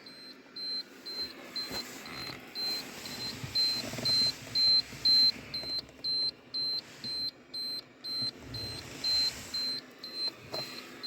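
Electronic warning beep repeating evenly about two times a second, with faint rustling and a couple of soft knocks beneath it.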